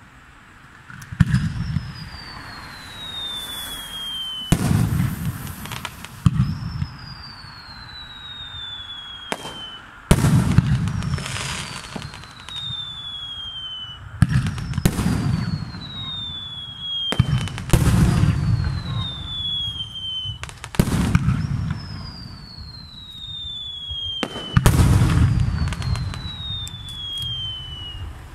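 Aerial firework shells going off one after another, about every three to four seconds. Each gives a whistle that falls in pitch over about two seconds and a sharp bang with a long booming echo.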